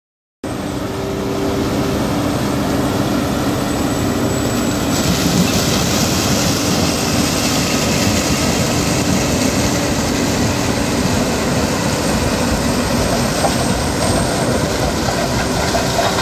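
Claas Lexion 780 TT tracked combine harvester running close by while harvesting grain maize with its eight-row Conspeed corn header: a loud, steady mechanical drone of engine and threshing machinery that starts abruptly about half a second in.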